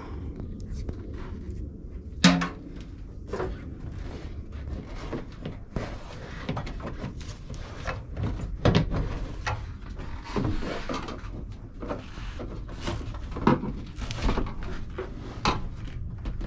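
Plastic AC vent trim and its retaining clips in a Ford Transit van ceiling clicking and knocking as the panels are pried loose and handled with screwdrivers. Irregular knocks, the sharpest about two seconds in, over a low steady rumble.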